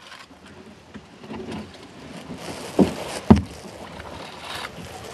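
Kayak paddling: paddle strokes splashing in the water, with two sharp knocks about three seconds in, half a second apart.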